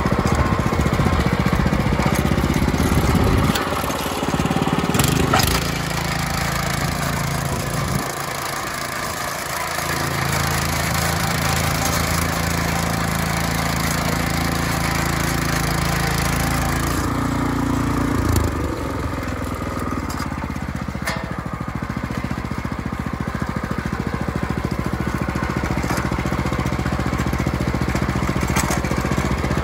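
WEIMA WM500 walking tractor's engine running under load while ploughing clay soil. Its note shifts a few times as the load changes, with a few sharp knocks along the way.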